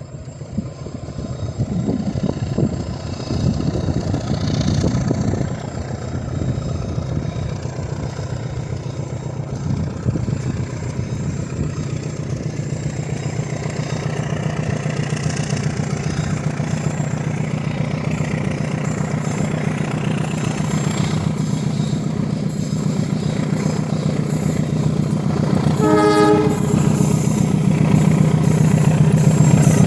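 Diesel locomotive-hauled train approaching, its engine and wheels rumbling louder and louder. Near the end it sounds one short warning blast of its horn.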